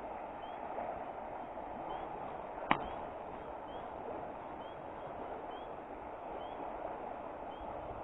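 Small trout brook running steadily, with a bird giving a short, high, rising chirp about once a second. A single sharp click comes about a third of the way in.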